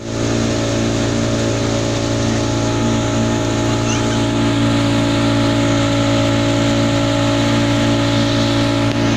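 Pontoon boat's motor running steadily at cruising speed, a constant drone with a low hum and higher tones over the rush of water and air.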